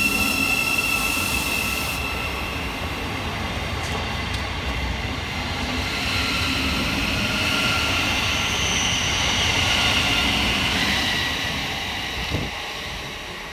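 Class 717 electric multiple unit departing the station: steady wheel-on-rail running noise with faint high tones, dying away near the end, with one sharp click shortly before it fades.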